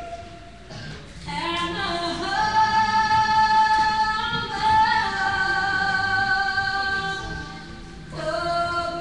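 A woman singing an anthem slowly, holding long notes and sliding up into some of them, with short breaks about a second in and again near the end.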